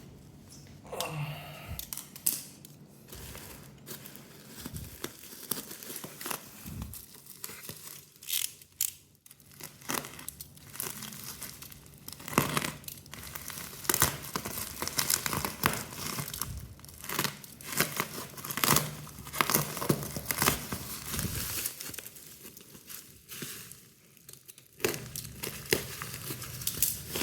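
Packaging being torn open and crumpled by hand, with irregular ripping and crinkling throughout.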